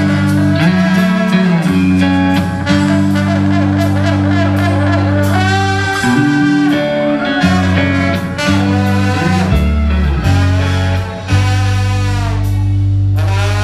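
Live blues band playing: an electric guitar lead with notes bending up and down over held electric bass notes and drums.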